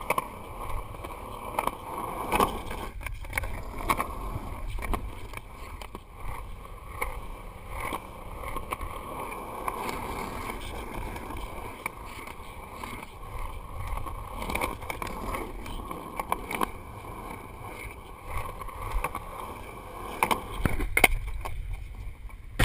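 Steady rumble of wind buffeting a GoPro action camera's microphone, with scattered knocks from handling or movement.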